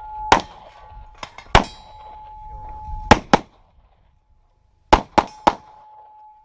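Pistol shots on a practical shooting stage with steel targets ringing on hits. There are about seven shots: two single ones, then a quick pair, then three in quick succession near the end. A steady metallic ring carries on after the hits.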